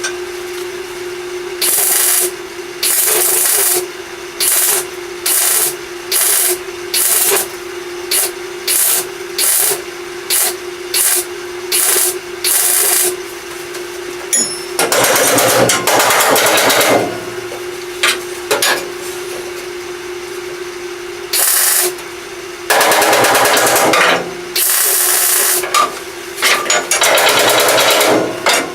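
Welder laying a run of short tack welds into sheet metal, a dozen quick crackling bursts, followed by several longer stitch welds of one to two seconds each. A steady machine hum runs underneath.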